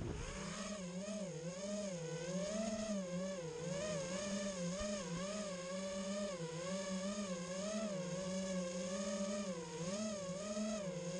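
FPV quadcopter's brushless motors whining in flight, the pitch rising and falling continually as the throttle changes.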